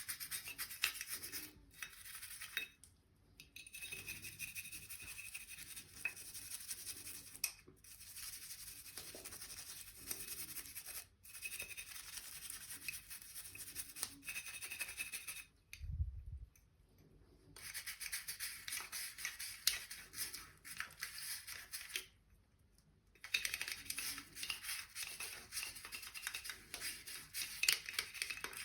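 A small bristle brush scrubbing coffee maker parts in quick, scratchy back-and-forth strokes, stopping briefly three times, with a dull bump at the second stop.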